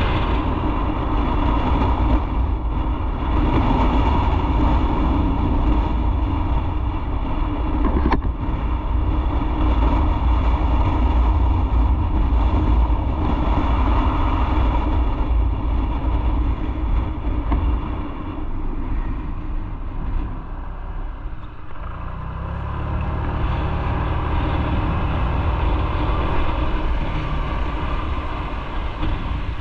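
Motorcycle engine and road noise while riding. The sound eases off past the middle and settles into a steady engine idle for the last several seconds.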